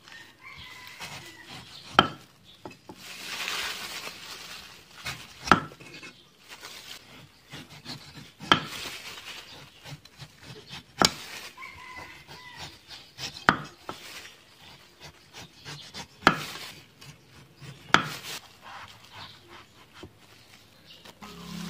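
Large kitchen knife peeling the spiny skin off a young gac fruit on a wooden chopping block: slicing and scraping, with seven sharp knocks of the blade against the wood, one every two to three seconds.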